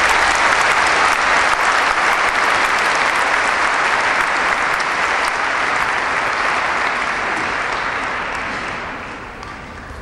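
Audience applauding, a dense steady clapping that fades away over the last couple of seconds.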